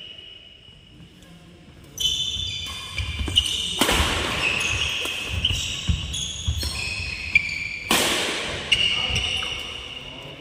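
Badminton doubles rally on a wooden court: shoes squeaking and feet thudding as the players move, with two loud sharp racket-on-shuttlecock hits ringing in the hall, about four and eight seconds in.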